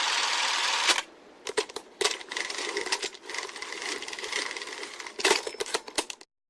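A steady hiss cuts off about a second in, followed by a run of irregular mechanical clicks and rattles that stop abruptly into silence near the end.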